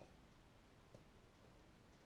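Near silence: room tone with a couple of faint small clicks, one at the start and one about a second in.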